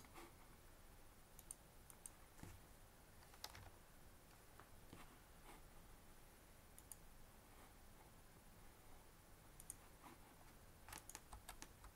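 Faint, scattered clicks of a computer mouse and keyboard, with a quick run of several keystrokes near the end, over quiet room tone.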